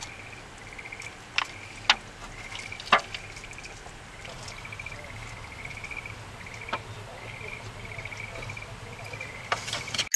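A night-time chorus of small calling creatures: short buzzy trills repeating about once a second. A few sharp clicks of chopsticks and a foil food tray being handled stand out over it, the loudest about three seconds in.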